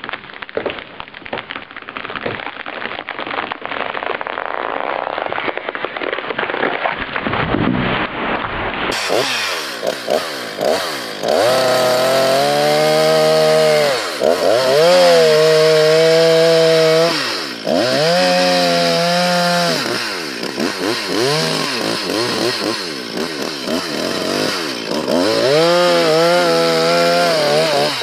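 Gas chainsaws felling trees: first a saw cutting steadily into a trunk, then, after a cut, another saw making the back cut opposite the notch, its engine dropping in pitch and winding back up to full speed several times.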